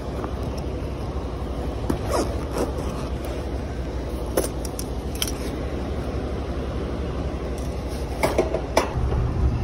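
Hands rummaging in a zippered fabric tool bag: a few short rustles and clicks, spaced irregularly, over a steady background noise.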